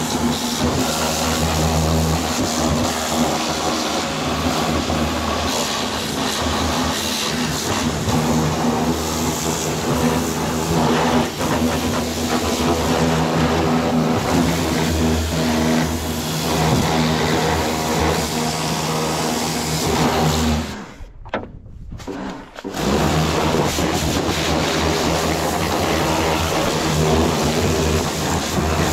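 Pressure washer running, its motor humming steadily under the hiss of the water jet. About two-thirds of the way through it cuts out for a second or so, then starts again.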